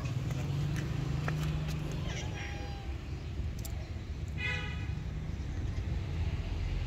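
A cat meows once, briefly, a little past the middle, over a steady low hum.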